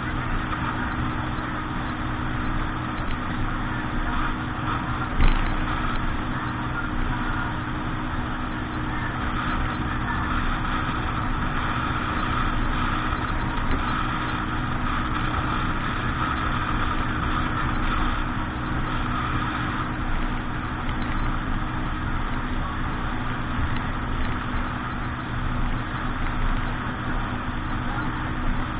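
Motorboat engine running steadily, with a single knock about five seconds in.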